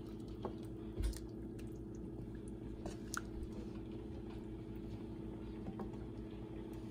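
Wooden spoon stirring rice and chicken through watery biryani masala in a stainless steel pot: soft wet stirring with a few light taps of the spoon on the pot, over a steady low hum.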